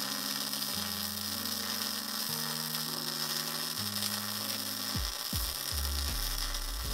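MIG welding arc crackling steadily on 0.8 mm steel wire, under electronic music whose buzzing bass steps between notes. Several falling bass sweeps come in from about five seconds in.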